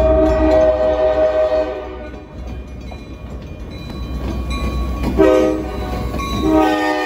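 Amtrak GE P42DC passenger locomotive's multi-note air horn sounding over the low rumble of the train: a long blast that ends about two seconds in, a short blast about five seconds in, and another long blast starting near the end.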